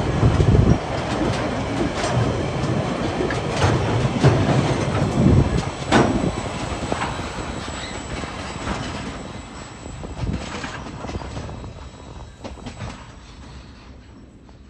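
Train wagons rolling past, wheels clicking over the rail joints, with the sound fading steadily as the train moves away.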